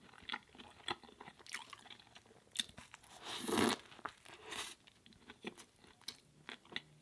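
Close-miked eating sounds: crisp crunching bites and wet chewing in a string of short crackles, with one louder, longer crunch about three and a half seconds in.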